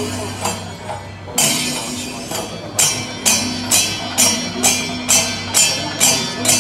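Kerala temple festival percussion: metal hand cymbals clashing in a steady beat of about two strikes a second, over a low steady drone.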